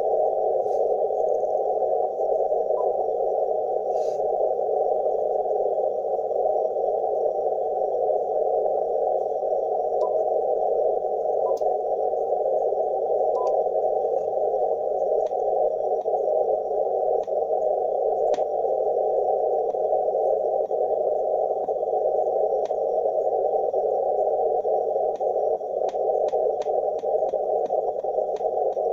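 Icom IC-7610 receiver hiss on the 40 m band, heard through its narrow CW filter. Faint clicks come in the audio here and there, then a quick run of them near the end as the main tuning dial is turned: the Digisel preselector clicking as it steps.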